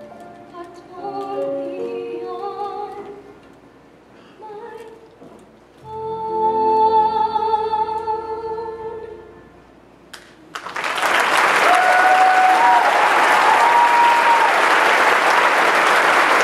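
The last held notes of a musical-theatre ballad with its accompaniment die away. About ten and a half seconds in, loud audience applause breaks out, with a few whoops over it.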